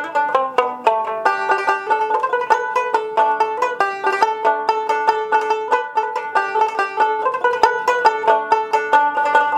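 Background music: fast plucked banjo-style melody, a quick run of bright notes.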